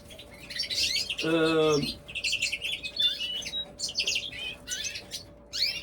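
Small cage birds in an aviary chirping and calling, many short high calls overlapping throughout. About a second in, a man's voice briefly holds one steady note.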